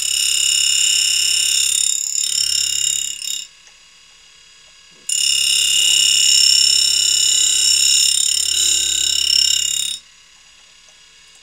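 CUTTERMASTER tool grinder's wheel grinding the secondary angle on the end of a 5/8-inch two-flute end mill: a loud, steady, high-pitched whine made of several tones. It stops about three and a half seconds in, starts again about five seconds in, and cuts off sharply about ten seconds in.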